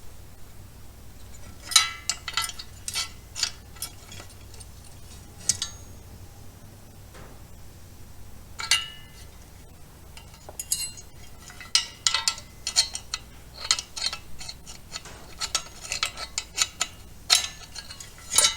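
Irregular metallic clicks and clinks, some ringing briefly, as a fuel pump and its metal hanger assembly are handled and fitted together by hand.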